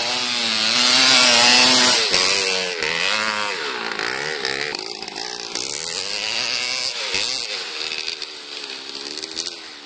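1990 Kawasaki KX250's single-cylinder two-stroke engine with no silencer, revving hard, its pitch climbing and dropping several times as the throttle and gears change, growing fainter toward the end.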